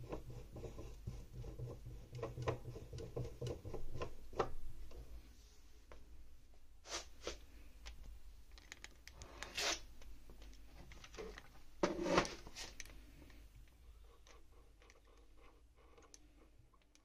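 Hands handling a mini lathe's metal chuck and spindle: rubbing and scraping with many small clicks for the first few seconds, then scattered clicks and a few sharper metal knocks, the loudest about halfway through.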